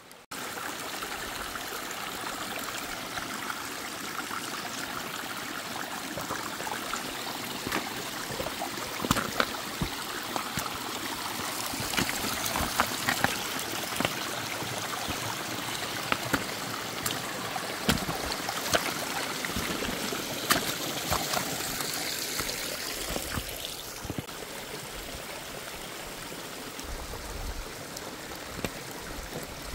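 Mountain creek running steadily, with scattered sharp clicks and knocks over it.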